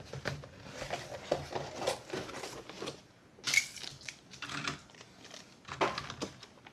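Irregular rustling and clattering as keyboard packaging and the unboxed items (cable, keycap puller, foam) are handled and set down, with a sharper knock about three and a half seconds in.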